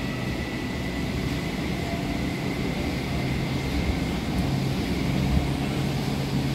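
Running noise inside the carriage of an NS SGMM sprinter electric train travelling at speed: a steady rumble with a low hum and a faint high whine that sinks slightly in pitch.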